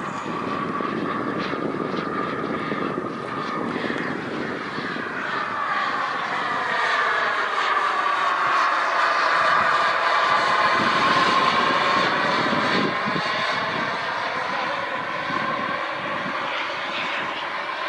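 Skymaster T-38 Talon RC jet in flight, its engine whining steadily. The whine gets louder and drops in pitch through the middle, then climbs back as it fades a little.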